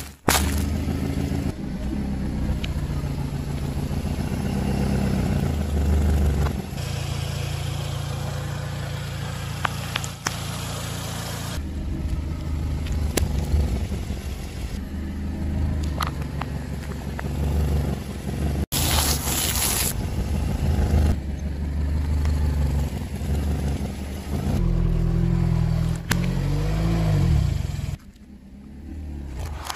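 A car's engine running at low revs while its tyre creeps over objects on asphalt, with crackling, crunching and a few sharp cracks as they are crushed. It comes as several short clips, so the engine note changes abruptly every few seconds.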